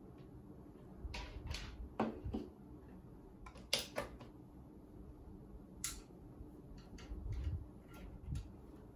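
Handling noise: clicks and rustles of a plastic plug and its cable being handled and the plug pushed into a wall socket, with the sharpest clicks about two and four seconds in and a few soft thumps near the end.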